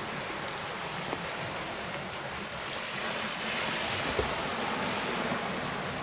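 Sea waves washing against a rocky shore: a steady rush that swells a little about midway, with wind on the microphone and a few faint knocks.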